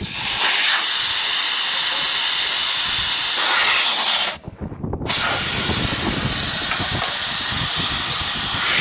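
Air hissing steadily out of a large off-road tire's valve stem through a deflator and gauge: the tire being aired down toward 8 psi. The hiss breaks off briefly a little before halfway, then carries on.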